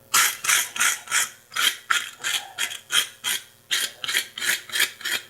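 Rapid back-and-forth metal-on-metal rasping on a pair of freshly heated farrier's tongs, about three strokes a second.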